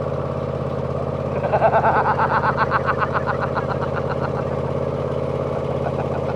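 A steady engine hum, like a vehicle idling. From about a second in, a rapid pulsing higher sound rises and runs over it for about three seconds.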